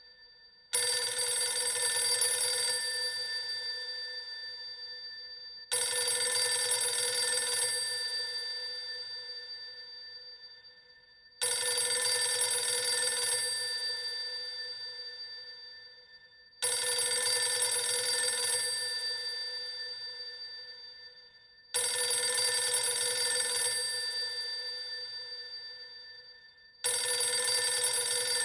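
An old telephone's bell ringing six times, about every five seconds; each ring starts suddenly, lasts about two seconds and fades away.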